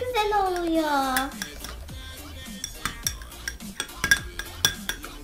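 Metal spoon stirring yogurt in a small glass bowl, clinking irregularly against the glass. In the first second or so a long tone slides down in pitch.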